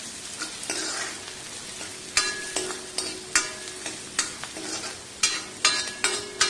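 Chopped onions and green chillies sizzling in hot mustard oil in an iron kadhai, browning on high flame. A metal ladle stirs them, scraping and knocking against the pan about ten times, irregularly.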